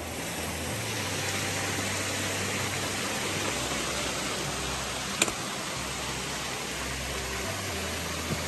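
Steady rush of a creek flowing, with a single sharp click about five seconds in.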